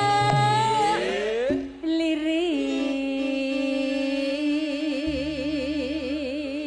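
A woman singing a Javanese langgam into a microphone, with musical accompaniment. About two seconds in she settles on one long held note that she ornaments with a wide vibrato.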